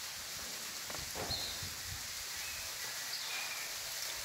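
Outdoor ambient noise with a steady hiss and a few short, faint bird chirps; a cluster of soft low thumps a second or so in.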